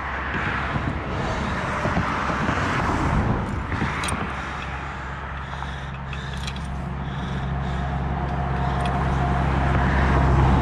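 A road vehicle's engine running nearby, a low steady hum that grows louder toward the end as it comes closer. A few sharp clicks around the middle.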